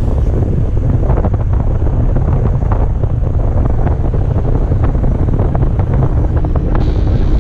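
Wind buffeting the microphone of a camera carried on a mountain bike descending at speed, a loud steady low rumble. Through it run frequent short knocks and rattles from the bike jolting over rough trail.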